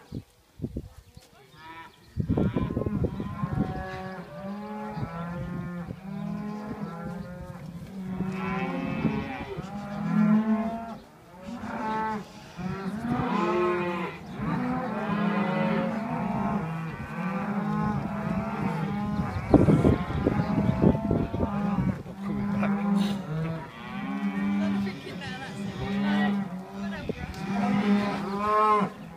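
A herd of young cattle mooing and bawling, many calls overlapping almost without a break from about two seconds in.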